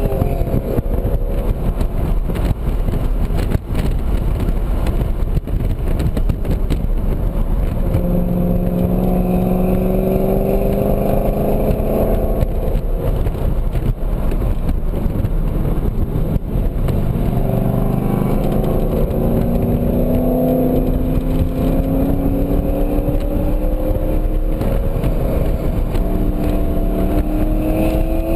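2007 BMW Z4 M Coupe's 3.2-litre inline-six with an aFe intake, heard from inside the cabin under hard acceleration. The engine note climbs in pitch and drops sharply about twelve seconds in at an upshift, then climbs steadily again. Road and wind noise run underneath.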